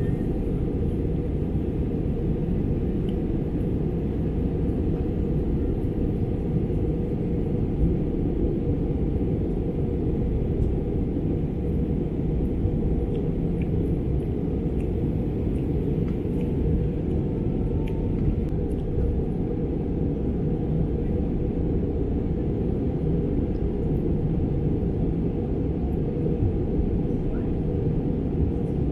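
Steady cabin noise inside an Airbus A320 airliner in flight: the low, even rumble of the engines and the air rushing past the fuselage.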